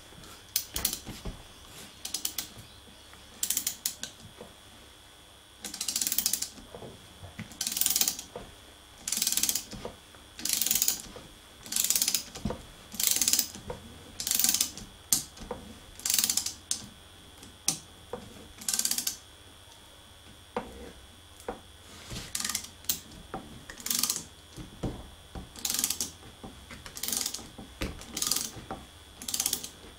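Ratcheting ring spanner clicking in short bursts, about one a second, with a pause past the middle, as it is swung back and forth. Each burst is the back-swing of the spanner tightening a nut on a threaded puller, drawing a taper roller bearing's outer race into a mini-lathe headstock housing.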